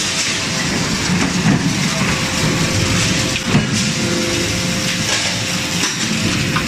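Steady din of forging-line machinery running, with a few sharp knocks, the loudest about three and a half seconds in, and a faint steady hum joining around the middle.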